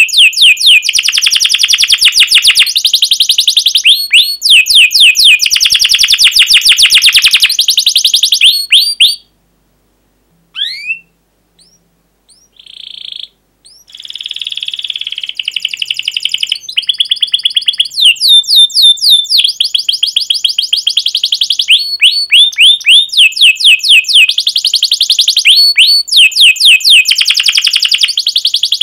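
A domestic canary singing loud, long song phrases of fast repeated trills and sharp chirps. The song breaks off for a few seconds about a third of the way in, with only a few scattered notes, then resumes.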